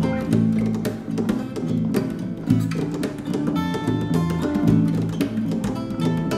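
Improvised music led by an acoustic guitar playing chords, with sustained low notes and frequent sharp plucked attacks.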